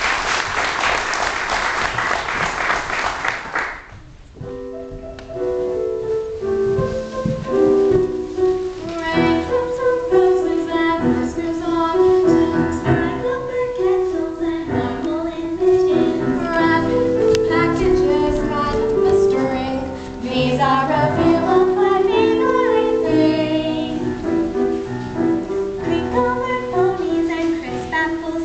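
Clapping for about the first four seconds, then a group of children singing a song with musical accompaniment.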